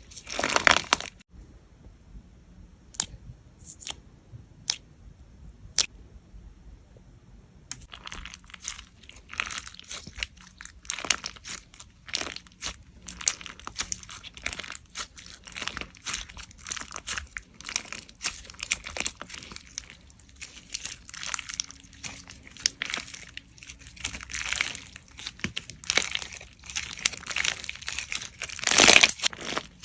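Slime being squeezed and pressed by hand, making many small crackles and pops. After a short burst at the start it goes quiet apart from a few single clicks, then from about eight seconds in it crackles densely to the end, loudest near the end.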